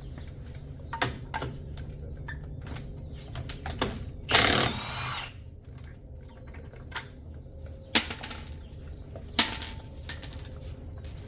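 Scattered sharp clicks and knocks of tool work on the truck, with one loud noisy burst about a second long near the middle, over a steady low hum.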